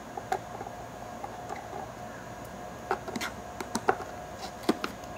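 Small sharp clicks and taps of hands handling the plastic memory cover and its screws on the underside of a Panasonic Toughbook CF-29 laptop. Most of the clicks come in a cluster in the second half, over a faint steady hum.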